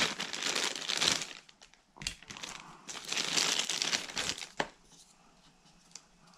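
Thin clear plastic bag crinkling as it is worked open by hand, in two spells of rustling with a sharp click about four and a half seconds in.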